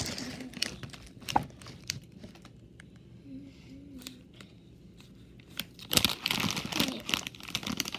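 Homemade slime being stretched and squeezed close to the microphone, crackling and popping with a few sharp clicks early on. It gets much louder and denser about three-quarters of the way through.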